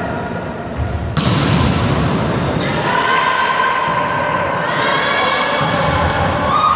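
A volleyball struck several times in a rally in a sports hall: sharp slaps and thumps of serve, passes and attack, the first and loudest about a second in, each ringing on in the hall's echo. Long held pitched sounds carry on underneath.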